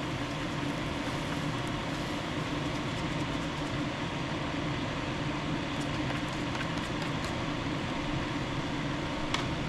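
Steady running fan noise, an even whoosh with a low hum, with a few faint clicks.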